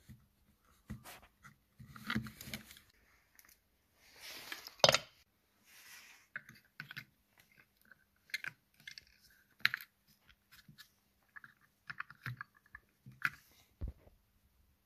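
Irregular small clicks, scrapes and crunches of hands working on a tar-filled wooden Model T trembler coil box while fitting a new capacitor, with one louder knock about five seconds in.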